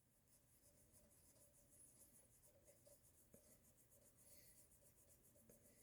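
Near silence, with very faint rhythmic rubbing strokes as smeared oil pastel is wiped off the aluminium-tape skin of a model aircraft.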